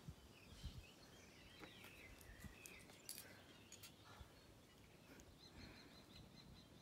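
Near silence with faint bird calls: a few chirping phrases, then a quick run of short high notes near the end. A few faint clicks.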